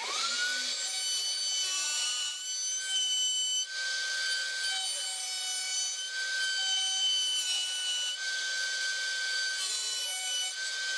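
Table-mounted router spinning up to a steady high whine, then cutting particle board as a blank is fed past its flush-trim bit, the bit's bearing riding a screwed-on pattern to copy it. The cutting noise swells and eases as the wood is pushed along.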